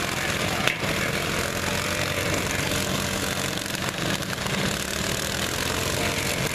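Several riding lawn mower engines running together in a mixed din, with a sharp knock less than a second in.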